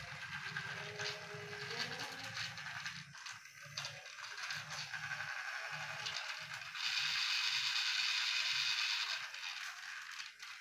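Battery-powered toy train locomotive's small electric motor and plastic gears whirring and grinding as it runs on its plastic track, louder for a couple of seconds near the end. It is hauling a string of cars, a load too heavy for it.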